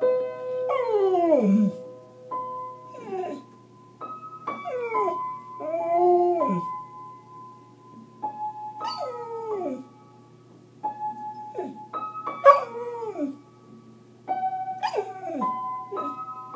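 Samoyed howling along to keyboard music, about eight howls that each slide down in pitch over held keyboard notes.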